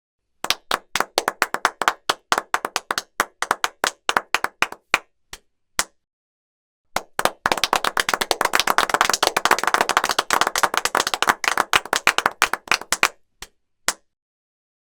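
Hand claps: a run of quick, uneven clapping for about five seconds, a pause of about a second, then denser, overlapping clapping for about six seconds that tails off into two single claps near the end.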